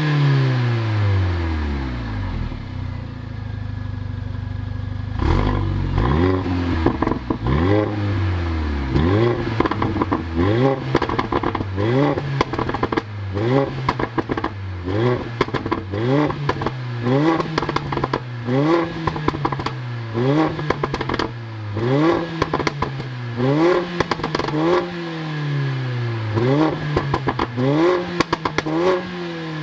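Mercedes-AMG CLA 45's 2.0-litre turbocharged four-cylinder engine, heard at its rear exhausts while stationary. The revs drop back to idle, then from about five seconds in it is blipped over and over, roughly once every one and a half seconds. Each rev rises sharply and falls away with crackles and pops on the overrun.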